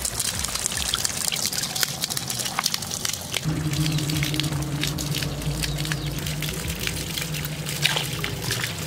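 Water splashing and sloshing as stinging catfish are rinsed by hand in a steel bowl, with water dripping and pouring off the lifted fish and over the bowl's rim. A steady low hum starts about three and a half seconds in.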